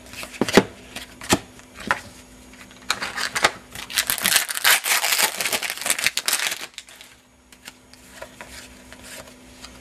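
A few sharp clicks of cardboard trading cards being handled, then a sealed trading-card pack wrapper crinkling and tearing open for about three and a half seconds, followed by soft flicks of the cards being flipped through.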